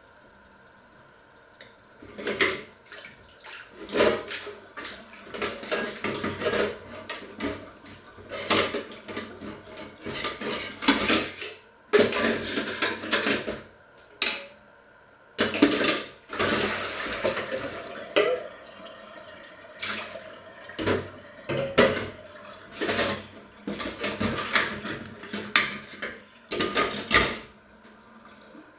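Metal bowls and dishes clattering and clinking as they are handled in a kitchen sink, with a tap running for a couple of seconds about halfway through.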